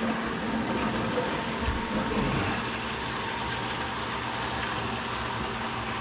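A 1/6-horsepower submersible utility pump running steadily with a low hum as it circulates vinegar solution through an electric tankless water heater for descaling. Water rushes back from the return hose into the bucket.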